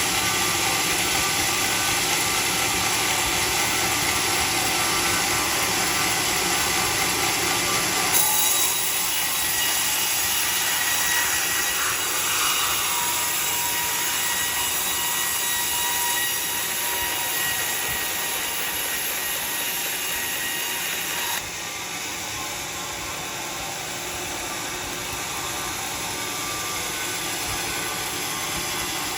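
Sawmill saw cutting teak timber: a steady, loud machine noise with a high whine. It shifts about a third of the way in and drops suddenly to a slightly quieter level about two-thirds of the way through.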